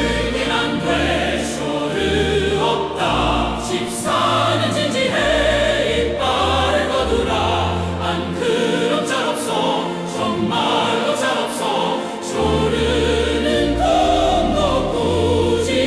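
Background music: choral, operatic-style singing over a steady low bass line.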